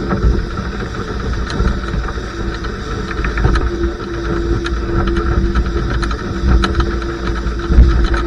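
Wind buffeting the microphone and water rushing past the hull of a sailing dinghy under way in a strong breeze, with scattered splashes and knocks and a steady hum that comes and goes.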